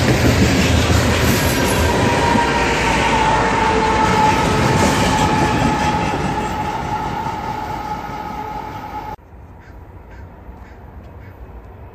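BNSF freight train of covered hopper cars rolling past, with a steady high wheel squeal over the rumble of the cars. The rear locomotives pass and the noise fades, then it cuts off abruptly about nine seconds in to a much quieter outdoor background.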